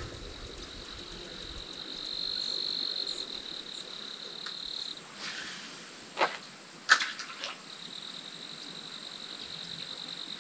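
A high-pitched, finely pulsed trill from a calling frog or insect, heard twice for about three seconds each, with a fainter steady high-pitched tone behind it. A few sharp clicks come between the two trills.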